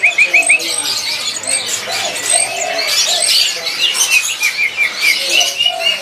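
Several caged songbirds singing at once, leafbirds among them, in a dense mix of chirps and whistles. Quick runs of short repeated notes stand out at the start and again just past the middle.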